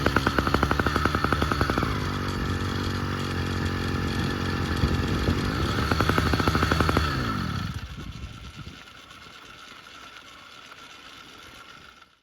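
Phantom 85 80cc single-cylinder two-stroke bicycle engine running on its first start. It runs fast at first, settles to a lower idle, picks up again briefly, then slows and stops about eight seconds in, leaving a faint steady background.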